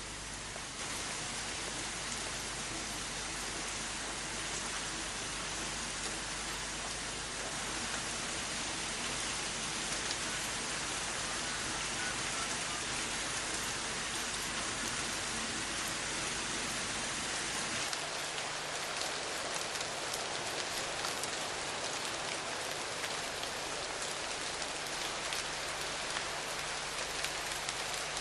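Steady rain falling, an even hiss. About two-thirds of the way through, the low rumble beneath it drops away and single drop hits stand out more.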